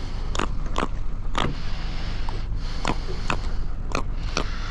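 A run of irregular sharp knocks and taps, roughly two a second, over a steady low rumble.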